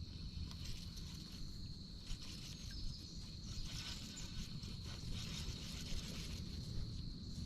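Insects trilling steadily, one unbroken high-pitched note, over a low rumble and a few faint clicks.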